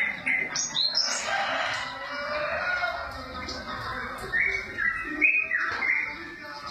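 Java sparrow giving short, sharp chirps again and again, with a rooster crowing about a second in.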